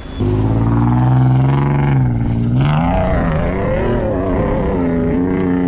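Toyota Land Cruiser Prado's engine revving hard under load as it climbs a steep dirt slope. It comes in loudly just after the start, and its pitch rises, dips and wavers as the throttle is worked.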